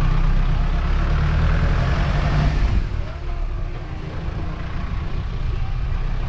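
A vehicle driving slowly, its engine and road noise making a steady low rumble that is louder for the first two and a half seconds and then eases off.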